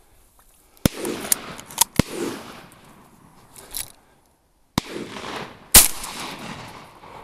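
Several shotgun shots at ducks in two clusters about four seconds apart, each followed by a trailing echo. The loudest shot comes near the end.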